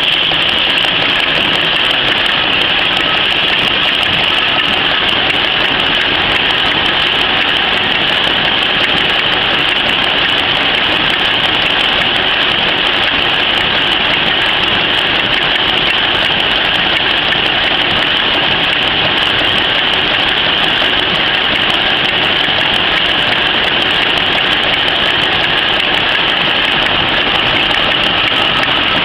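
PCMC 23 cm napkin-converting machine running steadily at speed as it folds and stacks paper napkins: a loud, unbroken mechanical running noise with a strong high-pitched rush.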